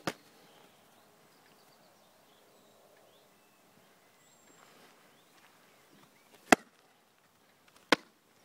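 Three sharp clicks over a quiet outdoor background: one at the start and two near the end, about a second and a half apart.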